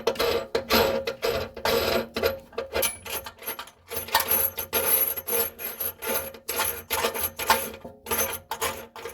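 Faucet mounting nut being turned by hand up the threaded shank, a repeated rasping rub at about two to three strokes a second.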